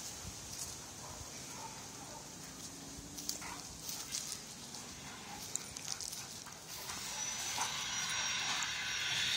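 Two dogs play-fighting, a Greater Swiss Mountain Dog and a tan dog, with short scattered dog sounds. From about seven seconds in, a steady hiss with a thin high tone rises underneath and grows louder.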